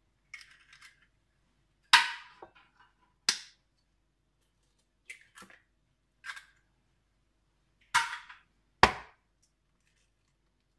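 Eggs being cracked against the rim of a plastic mixing bowl: a series of sharp cracks and taps in small groups with pauses between, the loudest about two seconds in and again near the end.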